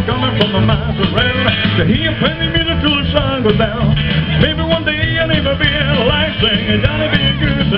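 Rock and roll music with singing, loud and steady.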